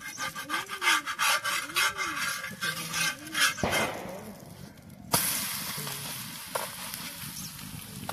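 A steel spatula scrapes and presses a chilka roti on a hot iron tawa in a quick run of scrapes, with a short low squeal rising and falling about once a second. About five seconds in, once the roti is turned, a sizzle starts suddenly and slowly fades.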